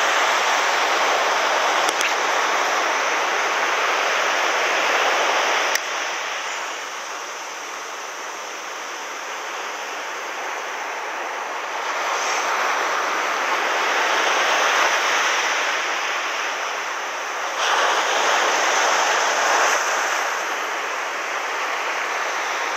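Ocean surf breaking and washing up a sandy beach: a steady rush of foam that eases off about six seconds in and surges again about twelve and eighteen seconds in.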